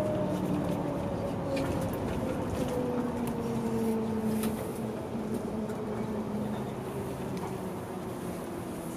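A bus slowing down: its drivetrain whine falls slowly in pitch over a steady road rumble, and the whole sound gradually gets quieter.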